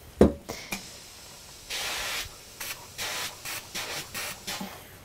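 Steam iron set down on fabric with a knock, then hissing steam: one longer hiss about two seconds in, followed by a run of short puffs, as it presses a fused fabric flap to bond it.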